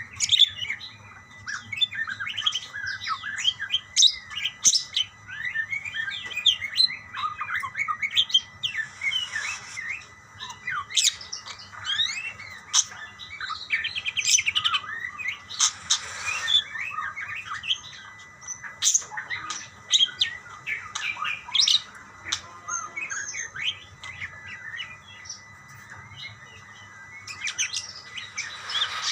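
Budgerigars chirping and warbling, calling back and forth to each other in a dense stream of quick, high chirps.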